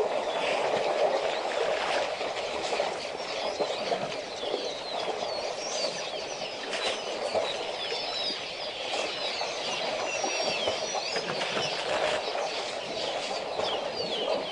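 Many small birds chirping in short rising and falling calls over a steady rushing noise, with a few brief knocks.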